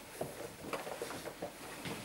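A litter of five-week-old Airedale Terrier puppies scrambling about: paws pattering and scratching on the bedding and the wooden box, as a busy, irregular run of small clicks and scuffs.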